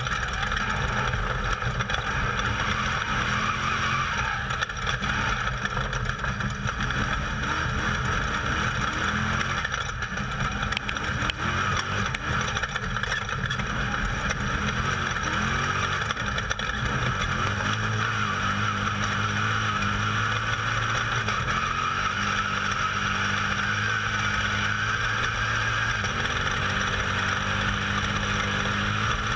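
Off-road race vehicle driven flat out over desert terrain, heard onboard: a steady loud rush of engine, wind and terrain noise. The engine note underneath steps up and down several times in the second half as the revs change.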